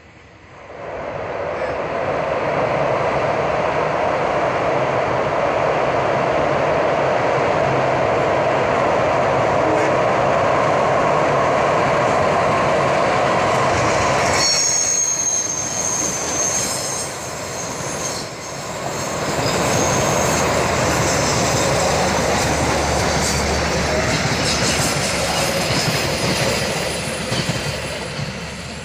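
Passenger train running past close by: a steady loud rumble of the locomotive and coaches on the rails, rising about a second in. Just after halfway there is a high-pitched squeal of steel wheels on rail, and then the coaches keep rolling past.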